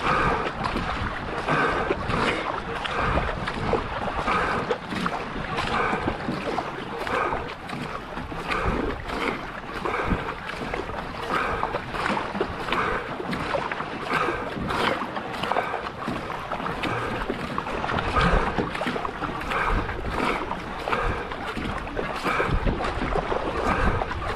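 Racing canoe paddle strokes: a steady rhythm of splashes as the blade catches and leaves the water, over the rush of water along the hull.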